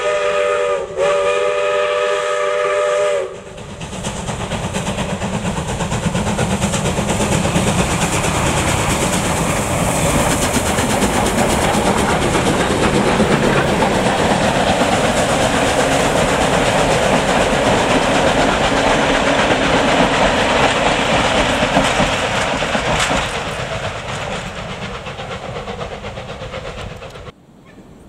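SAR 620 class steam locomotive 621 'The Duke' sounding its chime whistle: the end of one blast, then a second blast of about two seconds. The steam train then passes close by, its exhaust and the carriages rolling over the rails making a steady loud rumble for about twenty seconds. The rumble stops suddenly near the end.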